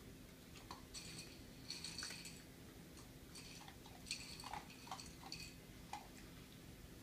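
Faint clinks and clicks of a dog eating from its food bowl, coming in small clusters with short pauses between.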